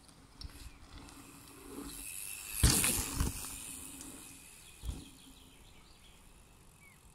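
Mountain bike riding over dirt jumps: the hiss of tyres on dirt swells and fades as the bike passes, with a loud thud about two and a half seconds in and lighter knocks after it.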